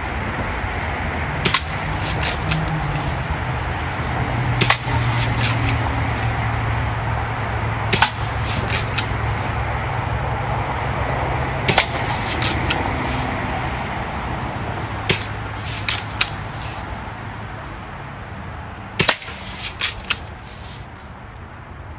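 Adult Daisy Red Ryder lever-action spring BB gun firing six shots, one every three to four seconds, each sharp crack followed by a few lighter clicks.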